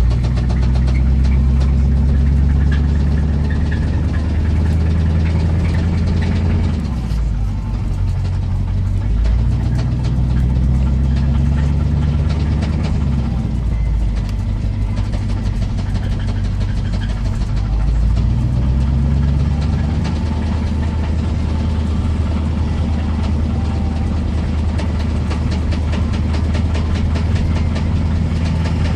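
1985 Chevrolet Silverado pickup's engine running while driving, with a rapid knock ticking through the engine note; the knock is the sign of an engine fault. The engine's pitch drops and rises several times as the truck changes speed.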